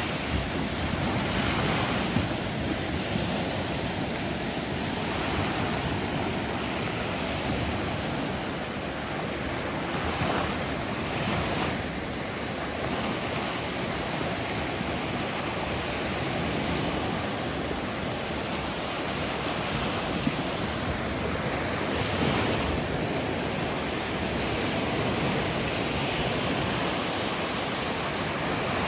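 Sea waves washing in continuously, the rush swelling and easing every few seconds, with some wind on the microphone.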